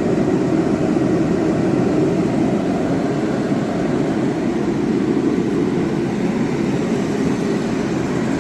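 Two propane forced-air heaters running, a Mr. Heater 30–60,000 BTU unit and a 40,000 BTU All Pro, making a steady, low rushing noise of fan and burner.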